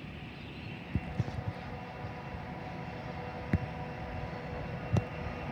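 Distant 81 class diesel-electric locomotive running light, a steady engine rumble with a faint hum of steady tones. A few sharp clicks stand out over it, the loudest two about three and a half and five seconds in.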